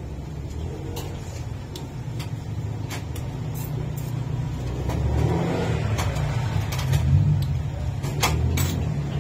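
Steady low rumble, with scattered sharp clicks and smacks of a man eating ripe mango, spooning and sucking the flesh off the skin.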